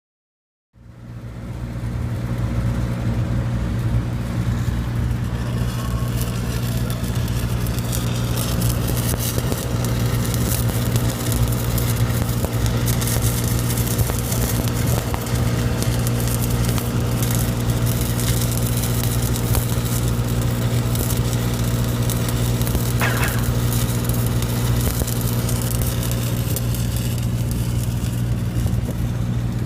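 Engine-driven welding machine running steadily, with the crackle of a stick-welding arc over it. It fades in about a second in.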